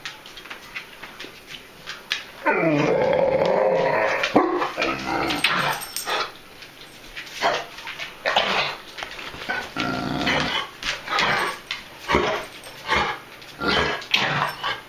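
A dog with kennel cough coughing: one long hacking spell of nearly two seconds about two and a half seconds in, then a run of short separate coughs.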